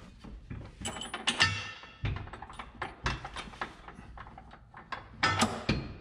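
Steel bolt-on trailer hitch knocking and clanking against the van's frame as it is lifted and shoved into place. One clank rings on about a second and a half in, and another loud clank comes near the end.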